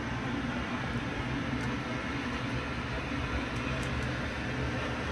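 Steady low mechanical hum with a noise haze, unchanging throughout, with a few faint high clicks in the middle.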